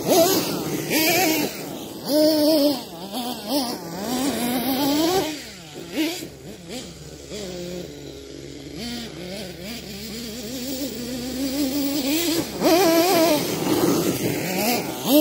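Kyosho Mad Force RC monster truck's two-stroke nitro engine revving up and down hard as it is driven, the pitch rising and falling again and again. It drops lower and quieter for several seconds in the middle, then revs loud again near the end.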